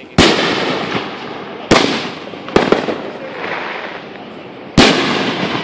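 Aerial firework shells bursting overhead: five sharp bangs, two of them in quick succession near the middle, each trailing off in an echo.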